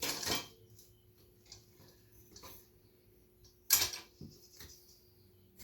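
Motorcycle tire and rim being worked on a tire change stand: two short scraping clatters about three and a half seconds apart, with light clicks between and a dull thud just after the second.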